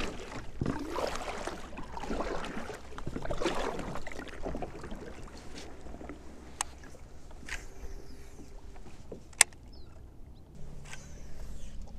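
Water and handling noises from a fishing kayak: a noisy rush in the first few seconds, then quieter, broken by a few sharp clicks, the loudest about nine seconds in.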